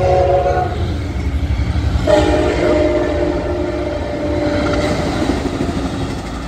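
A train passing at speed with a heavy rumble of wheels on rail, taken for an Amtrak. Its horn chord ends under a second in, and a second long blast sounds from about two seconds in until about five and a half seconds.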